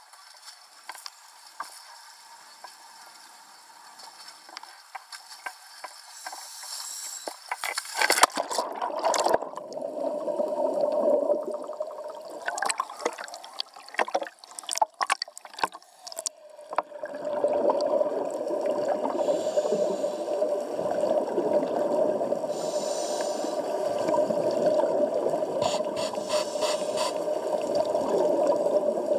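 Scuba diver's camera going into the sea: knocks and splashing as it goes under, then muffled underwater sound with a steady hum. Hissing scuba regulator breaths come every three to four seconds.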